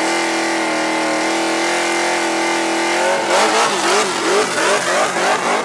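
Racing car engine held at steady high revs, then from about three seconds in the revs rise and fall quickly several times, as with throttle blips while shifting.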